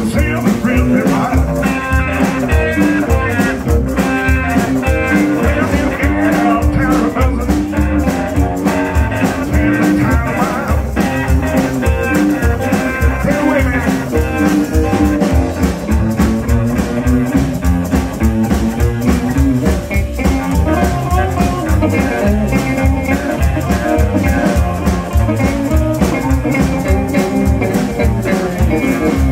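Live blues band playing with a steady beat: electric guitars over an upright bass.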